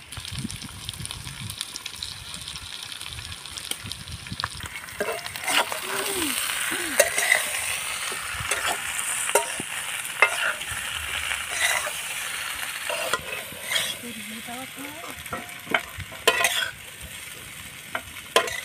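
Boiled potato pieces frying in oil in a steel kadhai, sizzling, while a steel spatula stirs and scrapes them, with repeated sharp clinks of the spatula against the pan.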